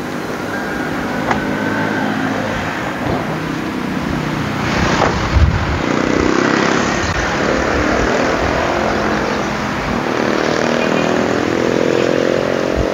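A Toyota Fortuner's door shutting with a heavy thump about five seconds in, over a vehicle engine running that rises and falls in pitch.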